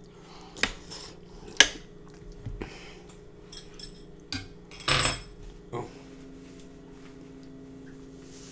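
A few sharp clinks of a fork against a metal griddle tray during a meal of noodles, the loudest a little over a second and a half in. A short, louder noisy burst comes about five seconds in.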